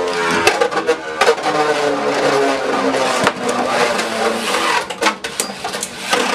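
Beyblade Burst spinning tops Gatling Dragon and Divine Belial spinning in a plastic stadium: a steady whirring hum broken by many sharp clicks as the tops strike each other and the stadium.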